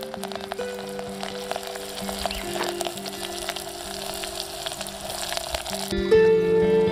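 Liquid boiling hard in a small clay pot over a wood fire: a steady hiss full of small pops, over background music. The boiling cuts off suddenly about six seconds in, and the music carries on louder.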